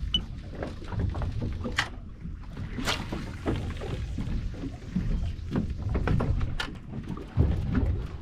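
Water slapping and splashing against a fishing boat's hull over a steady low rumble, with irregular knocks and two sharp clicks about two and three seconds in.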